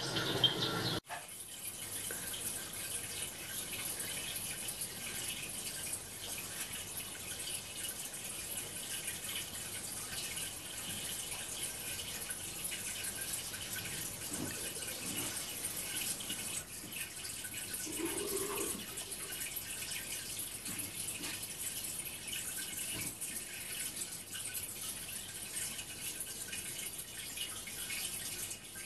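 Steady sound of running water from an aquarium video playing on a television, after a brief bit of birdsong that cuts off about a second in.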